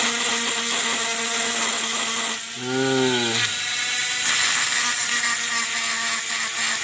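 Small handheld rotary tool running at a steady pitch, grinding the edge of a plastic trimmer head's line slot to take off the sharp edge that cuts the nylon trimmer line.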